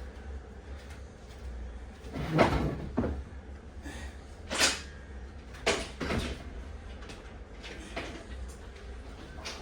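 A handful of separate knocks and clunks over a low steady hum, the loudest about two and a half and four and a half seconds in.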